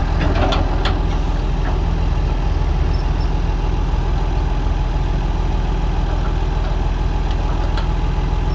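Heavy diesel engine of earthmoving machinery idling steadily, with a few light clicks in the first second.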